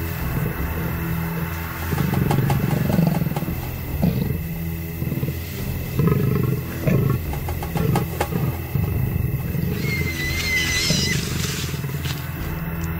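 A leopard and a hyena growling and snarling in irregular bursts as they fight over a kill, over a low steady music drone. A high wavering cry comes about ten seconds in.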